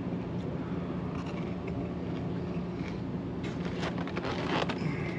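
Steady low background hum with a faint constant tone, and from about three and a half seconds in, a run of clicks and scrapes from styrofoam takeout containers being handled on a table.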